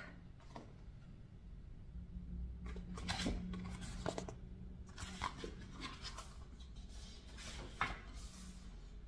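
Paper pages of an album photobook being turned and handled: a run of short, irregular rustles and flicks starting a few seconds in, over faint room hum.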